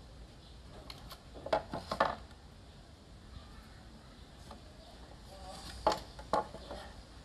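Hard plastic and metal parts of a Chevrolet Captiva side-mirror fold mechanism and housing knocking and clicking as they are handled: a short cluster of clatter about a second and a half in, and another around six seconds.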